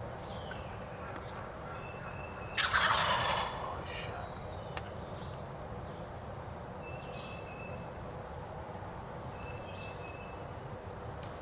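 Wild turkey gobbler gobbling once, a loud rattling call about two and a half seconds in that lasts about a second.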